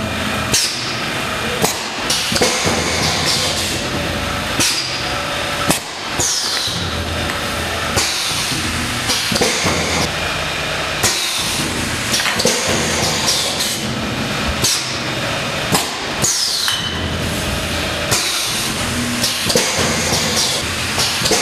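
Pneumatic aerosol filling machine cycling: sharp metallic clunks of its air-driven heads every second or two, each with a short hiss of air that drops in pitch, over a steady mechanical hum.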